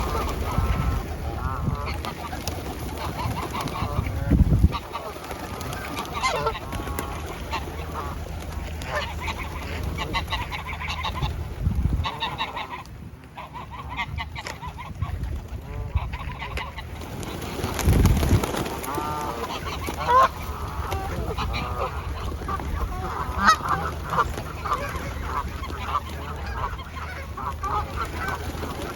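Geese honking over and over, several birds calling at once, with three brief low rumbles breaking in along the way.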